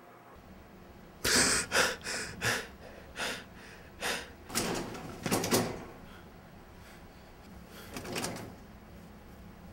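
A young man gasping in panic as he wakes: a quick run of about eight sharp, loud breaths over a few seconds, then one more near the end.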